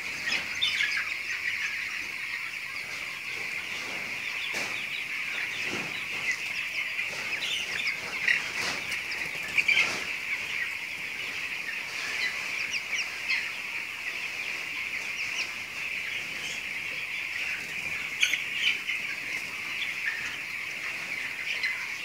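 A flock of fifteen-day-old broiler chicks peeping all together, a steady dense chorus of high chirps.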